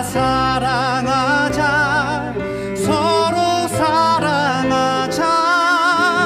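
Korean worship song (CCM) playing: a sung melody with vibrato over steady instrumental backing.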